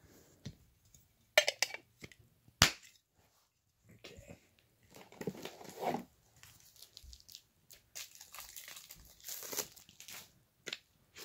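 Two sharp clicks about a second apart, then on-and-off crinkling and rustling of plastic packaging as a Funko Soda can and the bagged figure inside are handled and opened.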